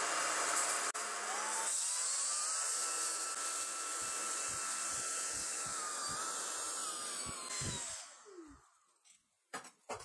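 Corvan K9 Pro cordless stick vacuum running on a thick shag carpet. Its motor whine steps up in pitch about two seconds in and holds, then falls and dies away as the vacuum stops near the end. A few soft knocks follow.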